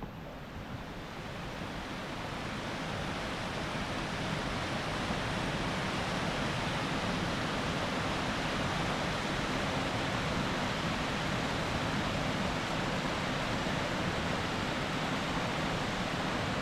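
Rushing river water, a steady noise that grows louder over the first few seconds and then holds steady.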